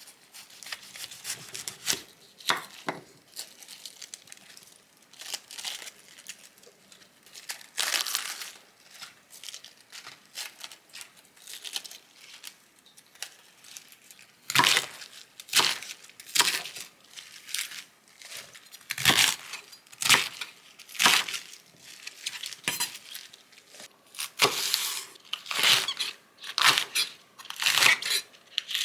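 Repeated tearing and crinkling, in short strokes that come thicker and louder from about halfway through.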